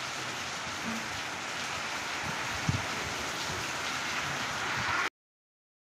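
Heavy rain falling steadily onto a yard of standing water, with a single low thump a little under halfway through. The sound cuts off suddenly near the end.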